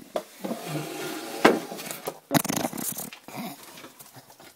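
Bulldog whining and moaning in a wavering voice, with a couple of sharp knocks partway through; the dog is crying for its lost squeaky toy.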